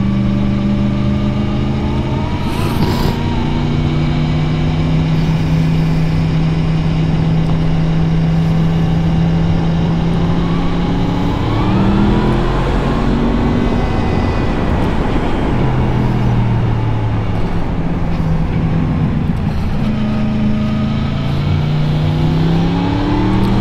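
Motorcycle engine heard from on board while riding. It holds a steady pitch for about ten seconds, then revs up and changes gear a couple of times, settles lower, and accelerates again through the gears near the end.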